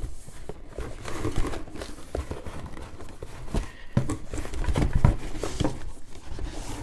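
Cardboard and packing material rustling and crinkling as a boxed graphics card is worked out of a cardboard shipping box, with scattered dull knocks of box against box, loudest about four to five seconds in.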